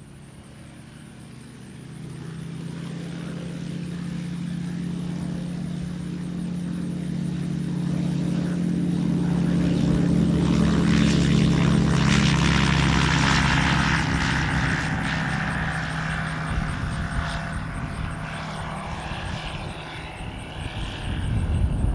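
Tecnam P2002 Sierra light sport aircraft's Rotax 912 four-cylinder engine and propeller at takeoff power. The drone grows louder as the plane rolls down the runway, is loudest as it passes about halfway through, then fades as it climbs away.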